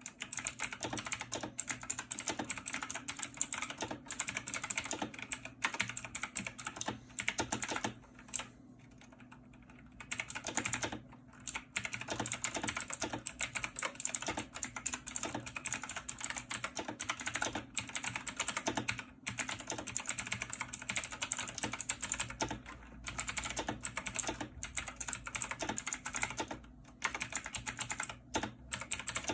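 Fast typing on a clicky mechanical gaming keyboard: a dense stream of sharp key clicks, broken by a pause of about a second and a half roughly a third of the way in.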